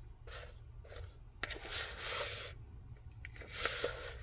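Spoon stirring a thick, dry mixture of nut butter, oats, nuts and cocoa powder in a bowl: three gritty scraping strokes, the middle one the longest, with a few small clicks.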